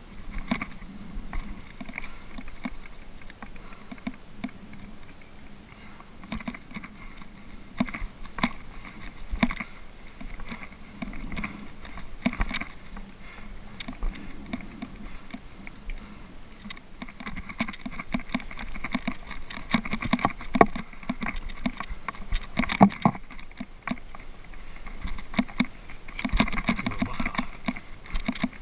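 Irregular scuffs, knocks and rustling of a climber scrambling over rock, with boots and hands on the stone and clothing and backpack moving close to the microphone, busier toward the end.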